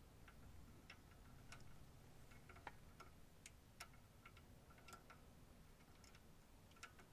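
Faint, irregular small clicks and taps of metal parts being handled at a car's front steering knuckle and brake caliper, as the brake line is fitted by hand; otherwise near silence.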